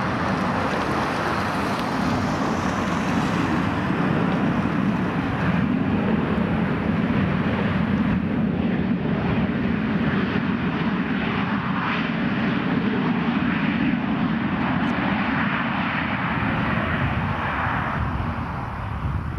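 Boeing 737-800's two CFM56-7B turbofan engines running at high power as the jet rolls along the runway: a loud, steady jet-engine noise that eases slightly near the end.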